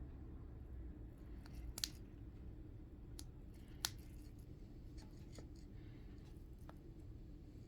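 Scattered small, sharp clicks and ticks from handling an iPhone and its glass screen protector, with two louder clicks about two and four seconds in, over a faint steady hum.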